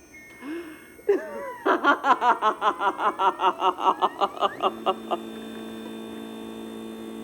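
A recorded laugh played from a sound module through a small speaker, a quick run of 'ha-ha' pulses at about four a second. It gives way about two-thirds of the way in to a steady electrical hum from the speaker: the interference noise the circuit picks up.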